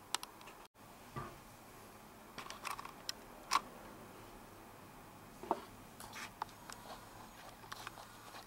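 Quiet room tone with faint, scattered small clicks and light taps. The loudest comes about three and a half seconds in. About a second in, the sound cuts out completely for an instant.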